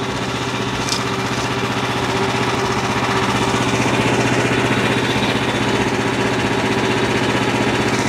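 Small Briggs & Stratton 10 hp single-cylinder engine of a portable band sawmill running steadily, not under cutting load.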